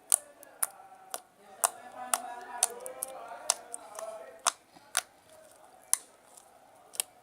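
Slime being squeezed and worked by hand, giving a series of sharp popping clicks, about two a second at first and sparser later, over faint background voices.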